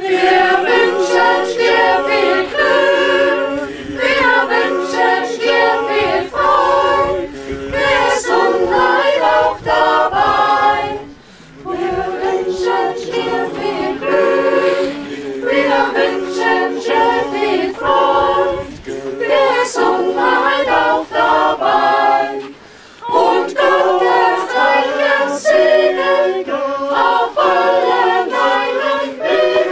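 A mixed Tyrolean folk choir of women's and men's voices singing a cappella in long, held phrases, with brief pauses for breath about a third and two thirds of the way through.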